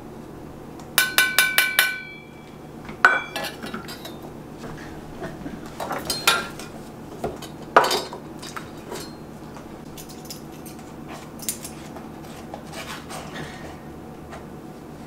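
Metal kitchenware clinking as dry ingredients are measured. About a second in comes a quick run of about seven ringing taps of a metal measuring cup against the stainless steel mixing bowl. Scattered clinks and knocks follow as measuring cups, spoons and ingredient containers are handled and set down.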